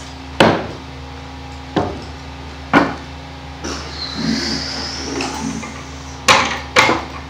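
Sharp knocks and clunks as metal hand tools such as pliers are loaded onto a model airplane and it is handled on a tabletop, five separate knocks spread over several seconds with softer rustling between them.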